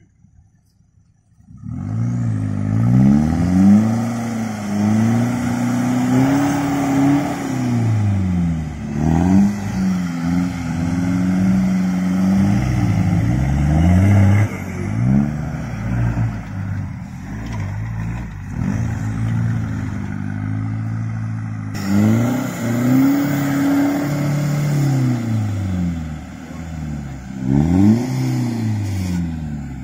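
Four-wheel-drive engines revving hard under load in soft sand, pitch sweeping up and down again and again as the wheels spin during the recovery of a bogged ute.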